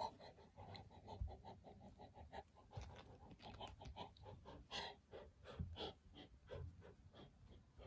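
Faint, quick rhythmic panting by a person, about four or five short breaths a second, like the breathing of a running animal.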